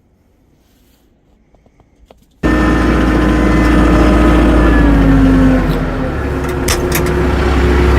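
A few faint clicks over near quiet, then a sudden cut to a tractor engine running loud and steady, its pitch dropping a little about halfway through.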